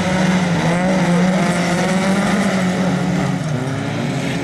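Engines of several folkrace cars running hard through a dirt-track corner, their notes rising and falling as they rev, over a steady low engine drone.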